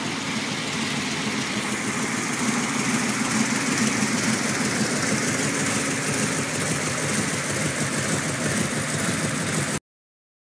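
472 cubic-inch Chrysler Hemi V8 running steadily on an engine stand, unmuffled through open long-tube headers. The sound cuts off suddenly near the end.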